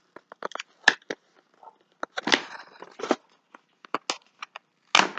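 Shipping packaging being handled and pulled open: a run of sharp crinkles, snaps and short tearing rustles, with a louder crunch near the end.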